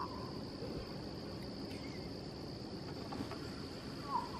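Crickets trilling steadily in a high, unbroken drone, with a brief chirp right at the start and another near the end.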